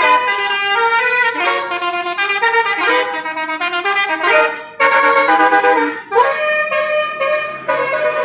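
Multi-tone basuri bus horn playing a telolet melody: a run of held, reedy notes that step from pitch to pitch, with two brief breaks about five and six seconds in.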